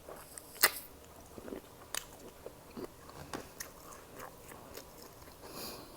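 Close-miked chewing of sauce-covered colossal shrimp: irregular wet mouth smacks and clicks, the loudest about half a second in.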